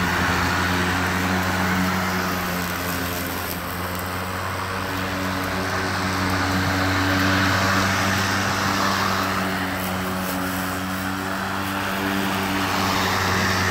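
Cordless EGO battery-powered lawn tool running steadily, a continuous motor hum with a rushing sound on top that swells and eases every few seconds.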